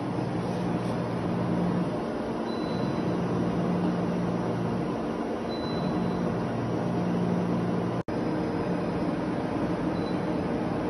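Okuma Genos L300E CNC lathe running under power with a steady mechanical hum, its low drone wavering between two pitches. The sound drops out for an instant about eight seconds in.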